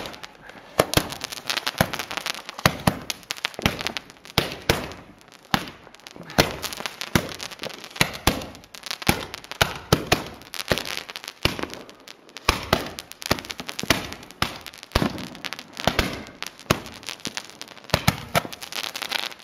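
Firecrackers going off in a long, irregular string of sharp bangs and cracks, several a second, without a break.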